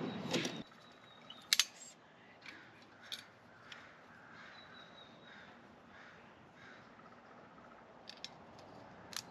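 Sharp metallic clicks and taps from a folding shelf bracket and its spring being handled during assembly, the loudest pair about a second and a half in. Crows caw faintly in the background.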